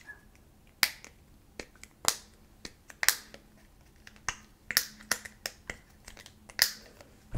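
Sharp, irregular tapping and clicking on a small product or its packaging as an ASMR trigger, about a dozen taps with a few much louder ones.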